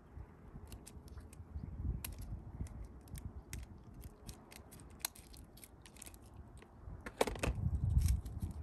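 Light clicks and ticks of small fishing tackle being handled while a new hook is tied onto the line, over a low rumbling noise that swells near the end. A brief pitched sound comes about seven seconds in.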